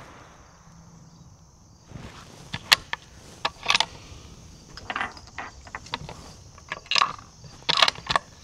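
Bolt of a Tikka T3x bolt-action rifle being worked after a shot: a run of metallic clicks and clacks from about two seconds in, as the spent case is extracted and a fresh round chambered. Insects chirp steadily throughout.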